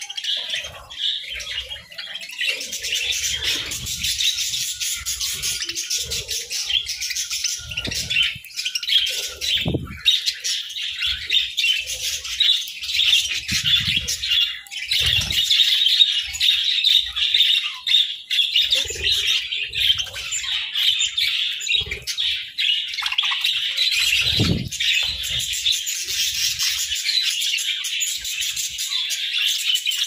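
A flock of budgerigars chirping and chattering continuously in a dense, busy chorus. Now and then there is a low thud, about ten seconds in and again near twenty-five seconds.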